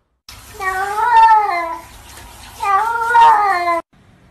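A cat giving two long, drawn-out meows, each rising and then falling in pitch, about two seconds apart; the sound cuts off suddenly near the end.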